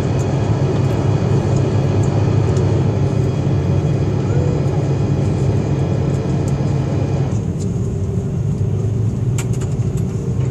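Steady hum of an Airbus A330-223 cabin at the gate, with several steady tones over a strong low drone. About seven seconds in, the higher hiss cuts off suddenly, leaving the low hum.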